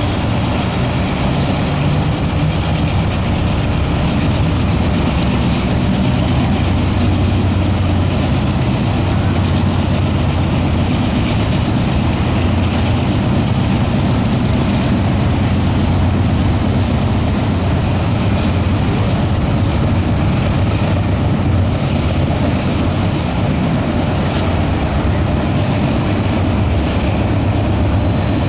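CSX mixed freight train rolling past, a steady low rumble of cars and wheels on the rails that holds at an even level.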